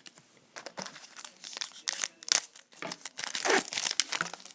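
Trading card pack wrapper being torn open and crinkled by hand: a run of irregular crackles and rustles that grows loudest a little past the middle.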